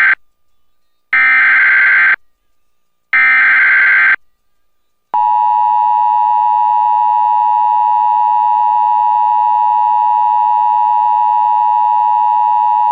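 Emergency Alert System signal for a flash flood warning: the digital header data bursts, the tail of one and then two more of about a second each with a second's gap between, followed about five seconds in by the steady attention tone, held for about eight seconds.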